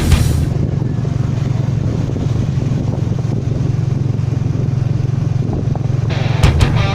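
Motorcycle engine of a tuk-tuk, the motorbike pulling a passenger carriage, running at a steady pace with road noise. Rock music with electric guitar comes back in near the end.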